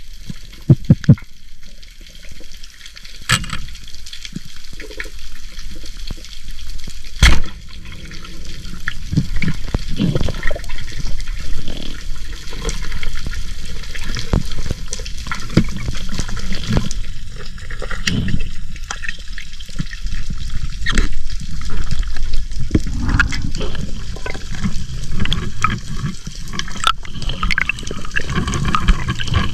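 Water sloshing and gurgling around the microphone, over a steady low rumble, with scattered sharp clicks and knocks.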